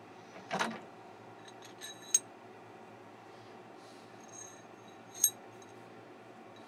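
Steel drawbar parts clinking together as they are handled: a dull knock about half a second in, then two sharp, ringing metal clinks about two and five seconds in.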